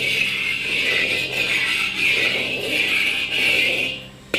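Hot oil sizzling in a wok as a metal spatula sweeps it around the sides; the hiss swells and eases with each sweep and dies down near the end.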